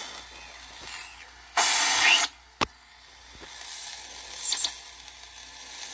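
Homemade 80-metre regenerative receiver playing band noise through an amplifier: a steady hiss with a faint high whistle wavering up and down. A loud burst of static comes about a second and a half in, a sharp click just after it, and a couple of fainter clicks past the middle.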